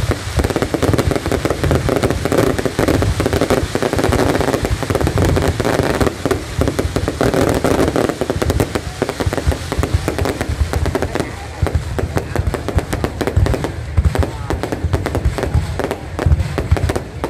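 Aerial fireworks shells bursting in a rapid, near-continuous barrage of bangs and crackles.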